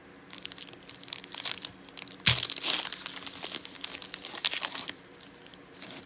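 Plastic wrapper of a trading-card pack crinkling as it is torn open, a run of crackles with one sharp rip a little over two seconds in.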